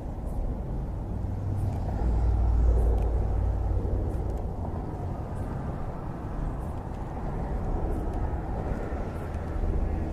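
Low outdoor rumble of traffic crossing the road bridge alongside, mixed with wind on the microphone, swelling about two seconds in and again near the end.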